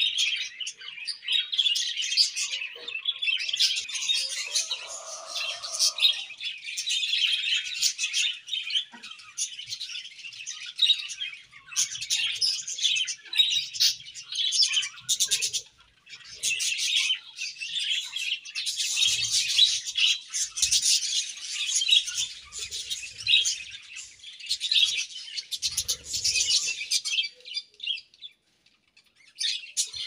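A colony of budgerigars chattering and warbling together, a dense stream of quick chirps. It breaks off briefly about halfway through and again near the end.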